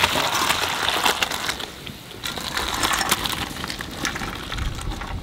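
Hot water and boiled raw jackfruit and potato pieces poured from a clay pot into an aluminium colander, splashing and draining, with the pieces knocking against the metal. The pour pauses briefly about two seconds in.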